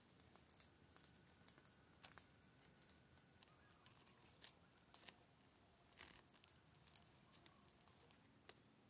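Faint scattered clicks and light rustling, one to three clicks a second, over a quiet hiss.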